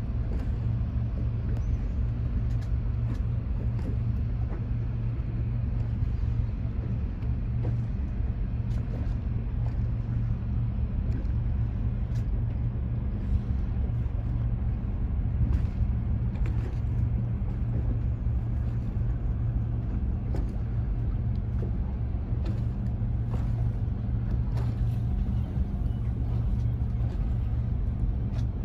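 A boat's engine running steadily, a low, even hum with a few faint clicks over it.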